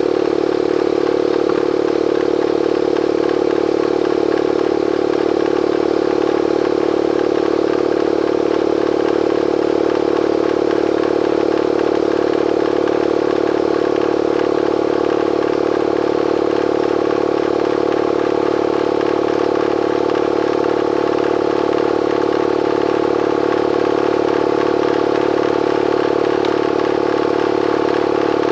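Bostitch air compressor's motor and pump running steadily, pumping up the tank, with a constant even pitch that does not change.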